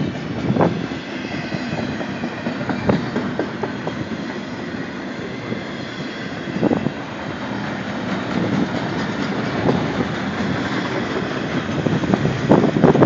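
BNSF freight train rolling past: a steady rumble of steel wheels on rail, with occasional clacks as wheels cross rail joints and a cluster of louder clacks near the end.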